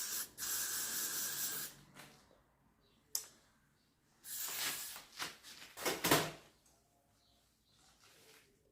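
Aerosol hairspray (Got2b holding spray) being sprayed onto a wig: a steady hiss of about a second and a half at the start, then a few shorter spurts a few seconds later.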